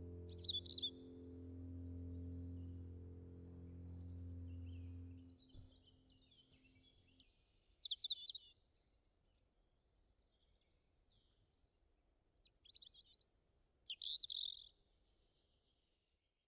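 Birds chirping in short scattered calls, loudest about eight seconds in and again near the end. Under the first few seconds a sustained low music chord fades out.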